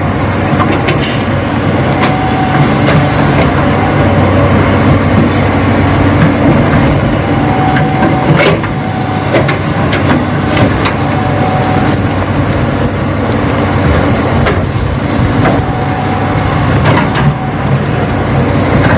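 Radio-controlled model excavator and dump truck working, with a steady engine-like hum and the motors whining in short spells several times, plus occasional sharp clicks.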